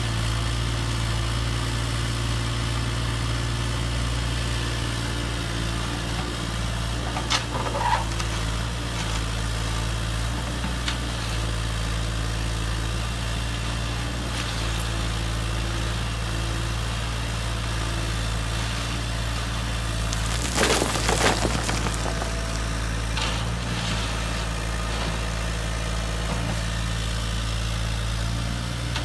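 Huina 1580 RC metal excavator running with a steady low drone as it digs. Stones clatter briefly about a third of the way in, and again more loudly about two-thirds through as the bucket works the pile.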